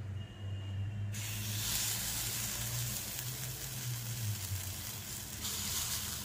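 Ragi (finger millet) paniyaram batter sizzling in the hot, oiled cavities of a paniyaram (appe) pan as it is spooned in. The hiss starts suddenly about a second in and grows brighter again near the end as more batter goes in, over a low hum.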